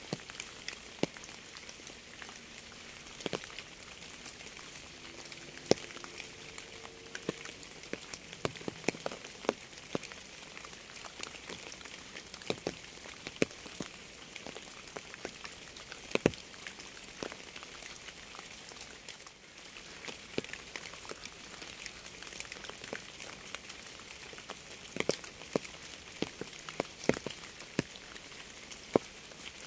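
Steady rain falling, a constant hiss with many individual drops ticking sharply close by.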